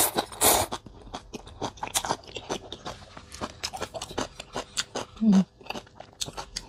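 Close-miked slurping of a mouthful of rice vermicelli noodles at the start, then chewing with many small wet mouth clicks. There is a short hum from the eater a little past five seconds.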